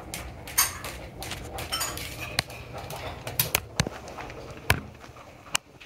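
Scattered sharp clicks, taps and rustling at irregular intervals: handling noise from a phone being moved about close to the microphone.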